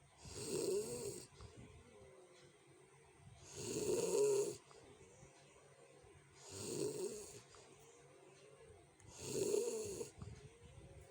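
A sleeping person snoring loudly and harshly, four snores about three seconds apart, each lasting about a second, with much fainter breathing between them.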